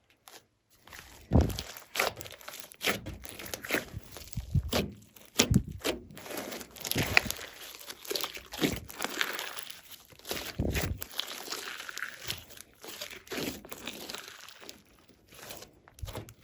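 Hands squishing and stretching glossy slime, giving irregular sticky crackles and sharp pops.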